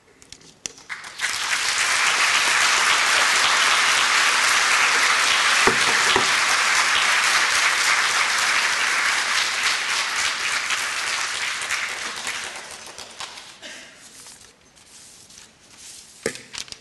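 Audience applauding, building up about a second in and dying away after about ten seconds of steady clapping.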